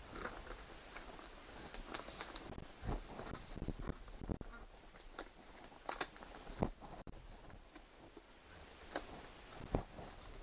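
Self-adhesive wood-grain vinyl wallpaper being pressed and smoothed over a table edge by hand: faint, irregular crackling and rustling with scattered sharp clicks and soft taps.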